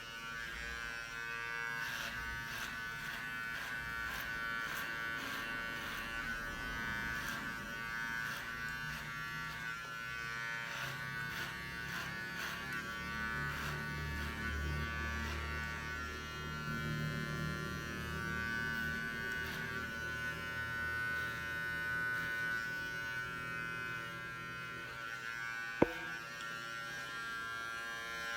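Battery-powered cutting tool with an upgraded electric motor running at high speed, a steady buzzing whine. A single sharp click sounds near the end.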